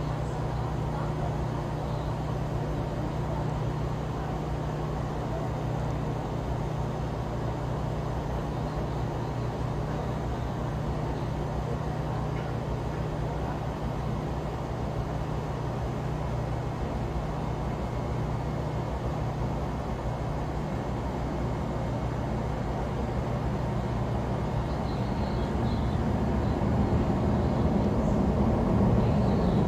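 Steady outdoor hum of distant traffic and machinery, with a few faint even tones low down, growing somewhat louder near the end.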